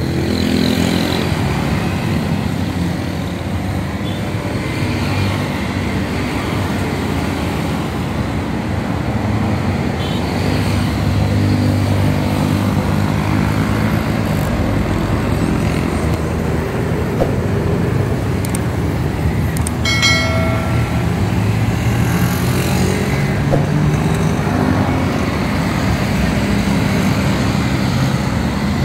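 Road traffic passing: motorcycles and cars go by with steady engine and tyre noise. A vehicle horn beeps once, briefly, about two-thirds of the way through.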